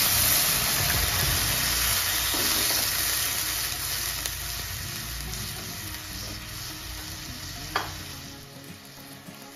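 Tamarind water sizzling as it hits a hot non-stick pan of fried onion and chilli masala, the hiss slowly dying away as it is stirred with a wooden spatula. A single sharp tap about eight seconds in.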